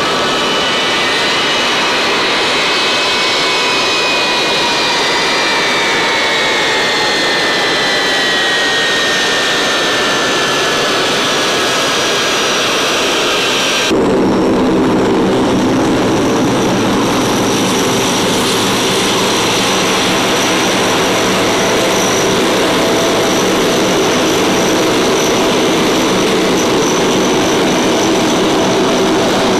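Turbofan engines of a taxiing C-17 Globemaster III running, a loud high whine of several tones that slowly falls in pitch. About halfway through it cuts to a steadier, deeper engine drone with a thin steady high whine above it.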